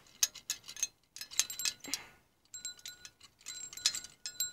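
Light clicks and rattles with short, high metallic chiming, the ringing becoming frequent in the second half.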